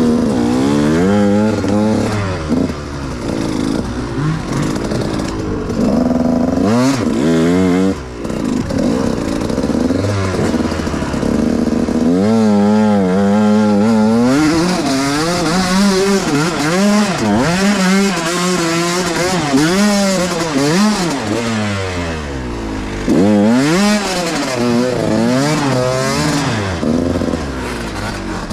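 Dirt bike engine being ridden close up, its pitch rising and falling again and again as the throttle is opened and closed.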